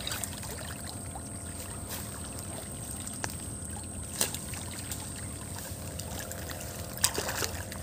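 Steady low outdoor background noise with several scattered sharp clicks and taps.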